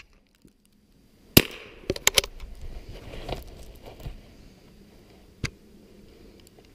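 A single-shot Mossberg .22 rifle fires one .22 Short round about a second and a half in: a single sharp crack. A few quick clicks follow half a second later.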